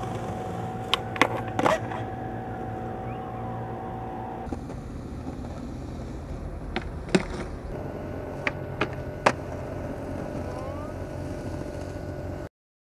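Skateboard rolling on concrete with several sharp cracks of the board popping and landing, a cluster of them a second or two in and more between about seven and nine seconds, over a steady background hum. The sound cuts off shortly before the end.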